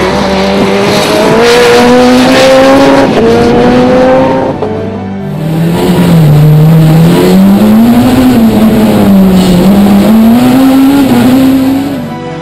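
Peugeot 207 S2000 rally car's two-litre four-cylinder engine at full throttle, its pitch climbing steadily for about four seconds as it pulls through the gears. After a brief drop, it is heard from inside the cockpit, the revs dipping and climbing again several times as the car is driven hard on the stage.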